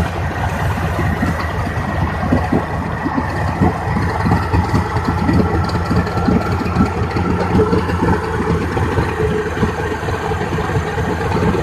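1987 Suzuki DT55 three-cylinder two-stroke outboard idling steadily while its idle speed screw is adjusted; the idle barely changes.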